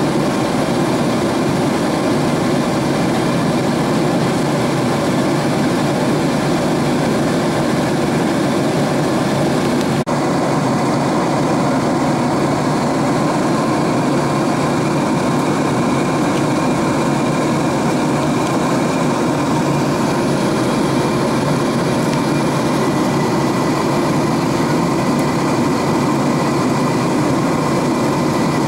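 Steady cabin roar of a Boeing 767-300ER airliner at cruise: jet engine and airflow noise heard from inside the cabin, at a constant level. There is a tiny break in the sound about ten seconds in.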